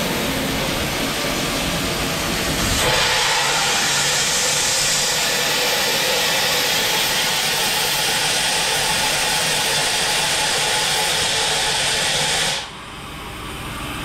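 Machining centre's 20 bar through-spindle coolant jet spraying inside the enclosure; about three seconds in it gives way to a louder, steady hiss of the through-spindle air blast. The hiss cuts off sharply near the end, leaving a quieter sound that slowly swells.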